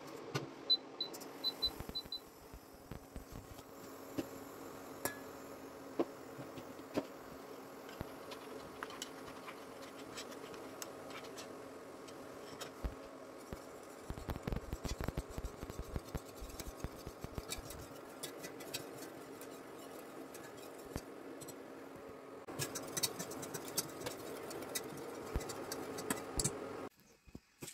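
An induction hob's touch controls give a quick run of about six short beeps. Then a wire whisk clicks and scrapes against a stainless steel saucepan as honey, water and agar powder are whisked, over a steady low hum.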